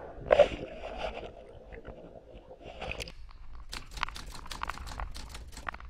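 Muffled rush of water and bubbles heard through an underwater camera as a swimmer plunges into the pool. About three seconds in, it changes abruptly to a rapid crackle of sharp clicks and splashes.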